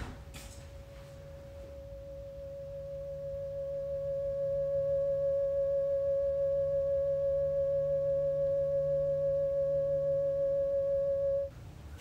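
A steady, pure electronic tone held at one pitch over a faint low hum, fading in over the first few seconds and cutting off abruptly near the end.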